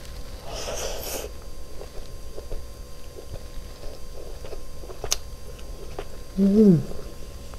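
Close-miked mouth sounds of chewing a mouthful of chicken biryani rice: faint wet clicks and smacks, after a short breathy rush at the start. Near the end comes a brief falling 'mm' hum of enjoyment.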